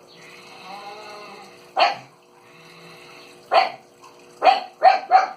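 A dog barking: two single short barks spaced apart, then three in quick succession near the end, with a fainter wavering whine between them over a steady hum.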